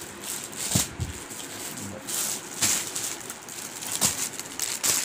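Clear plastic packets of folded cloth suits crinkling and rustling as they are handled and shifted, in a few separate rustles.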